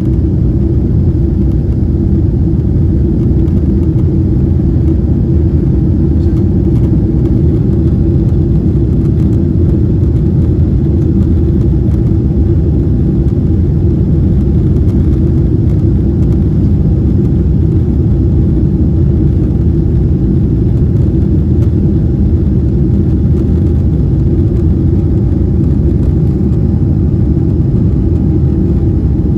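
Cabin noise of a Boeing 777-300ER climbing out: its GE90 engines at climb thrust and the airflow around the fuselage make a loud, steady low rumble, heard from inside the passenger cabin, with a faint steady tone above it.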